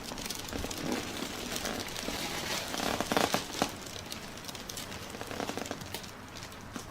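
Irregular rustling and crinkling from hands working over a patient on a treatment table during a massage, with scattered small crackles.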